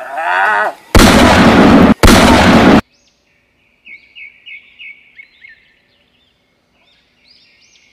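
Two loud blasts of gunshot sound effect, each under a second long and close together, then a small bird chirping a quick run of short high notes, with a few fainter chirps near the end.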